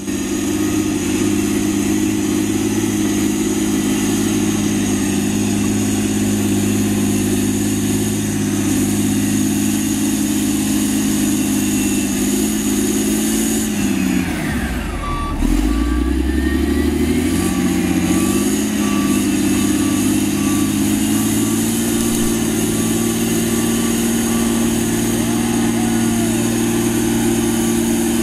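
Dynapac CT300 pad-foot soil compactor's diesel engine running steadily as the machine works over loose fill. About halfway through, the engine note drops sharply and climbs back up over a couple of seconds, and after that a regular beep repeats at one pitch.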